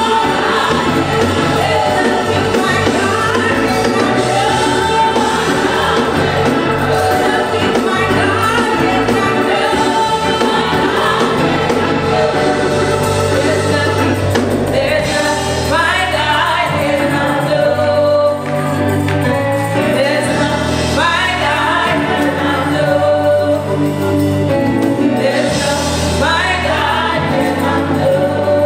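Live gospel praise-and-worship singing: a group of singers on microphones leading the song over steady instrumental accompaniment.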